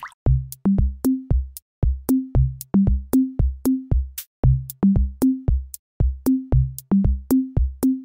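Electronic background music: a drum-machine beat of short, punchy bass notes, about three a second, climbing in steps through a repeating low figure.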